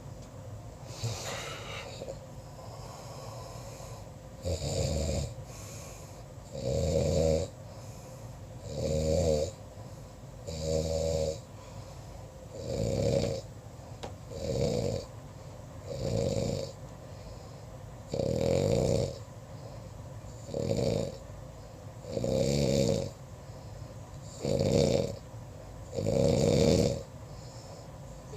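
Snoring in a steady rhythm, one loud snore about every two seconds, beginning about four seconds in after a quieter stretch of breathing.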